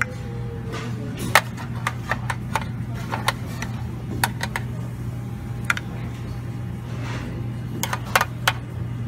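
Metal serving tongs clicking and tapping against a stainless steel tray and a ceramic bowl while lemon wedges are picked up. There are about a dozen sharp clicks in irregular clusters, over a steady low hum.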